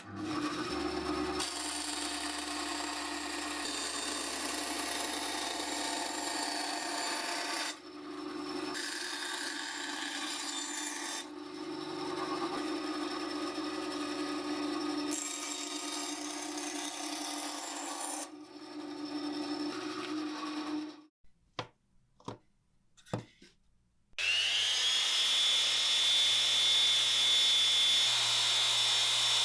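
A power tool working wood, a steady grinding machine noise broken by abrupt changes. After a few clicks, a motor spins up near the end to a steady high whine.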